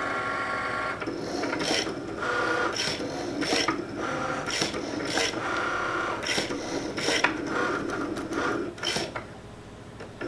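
Cricut Maker cutting machine cutting fabric: its carriage and roller motors whir in changing pitches as the tool head travels and the mat moves, with a dozen or so short, sharp rasping strokes along the way. It falls quieter shortly before the end.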